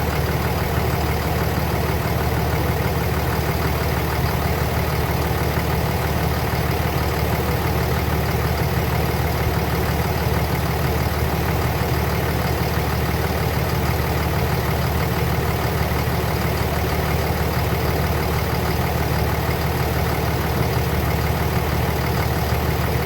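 Car engine idling steadily with the air-conditioning compressor engaged and pumping while the system takes a refrigerant charge.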